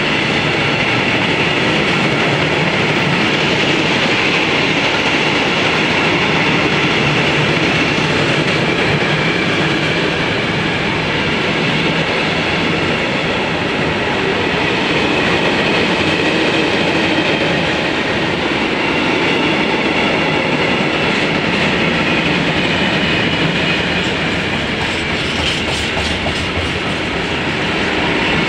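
Freight train of railway tank wagons rolling past close by, with a steady loud clatter of wheels on the rails that does not let up.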